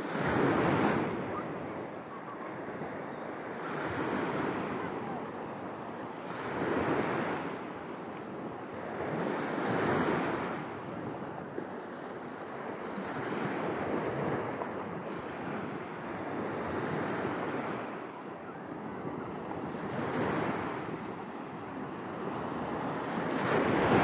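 Small Black Sea waves breaking and washing up over a beach of shell grit at the water's edge, each surge of wash swelling and fading about every three seconds.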